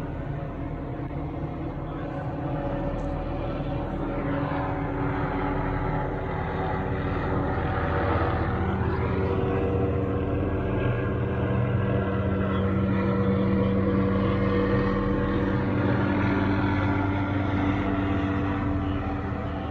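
Police helicopter flying over, a steady drone that grows louder through the middle and eases off near the end.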